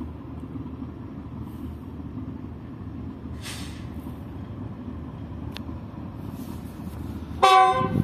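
GEU-40 diesel locomotive approaching slowly with a steady low engine rumble, then a short loud blast of its multi-tone air horn near the end.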